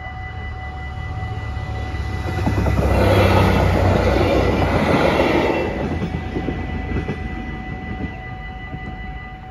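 A LINT 41 train passing over a level crossing, its engine rumble and wheel-on-rail rush building to a loud peak about three seconds in and fading after about six seconds. The crossing's warning bells keep up a steady electronic ringing throughout.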